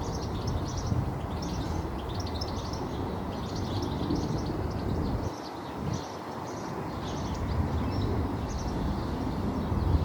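Black redstart singing, repeated short phrases of high chirping notes, over a steady low rumble that dips briefly about five seconds in.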